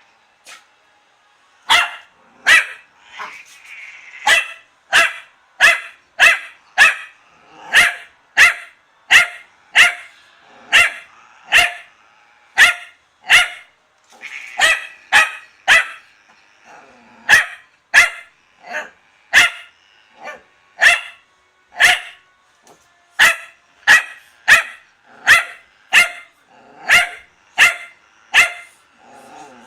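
Kaninchen (rabbit) dachshund barking over and over in sharp, high single barks, about one to two a second with a few short pauses: play barking from a dog that wants to play.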